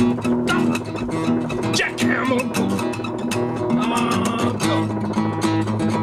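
Acoustic guitar being played, with sustained chords and frequent sharp picked strokes.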